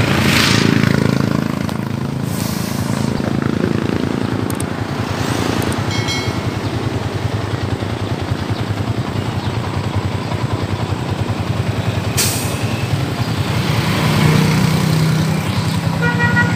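Motorcycle engines running steadily among a group of riders, with two short beeps, one about six seconds in and one near the end.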